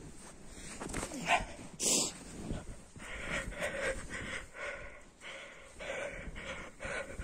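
Heavy panting breaths, about two a second, from exertion while wading through deep snow. A loud brief rustle comes about two seconds in.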